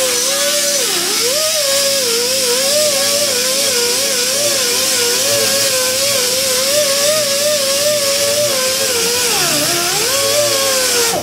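Chief quarter-inch pneumatic mini angle die grinder running with an abrasive disc against rusty steel, stripping surface rust. The air motor gives a steady whine over a loud hiss, and its pitch wavers and sags briefly twice, about a second in and near the end, as the disc is pressed harder. The sound cuts off abruptly at the end.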